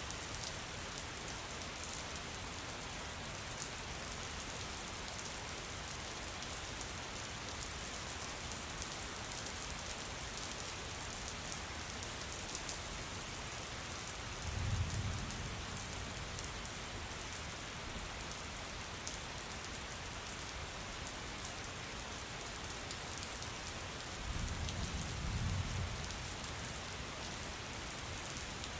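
Steady rain falling, an even hiss with fine individual drops ticking through it. Twice, about halfway through and again near the end, a brief low rumble swells under the rain.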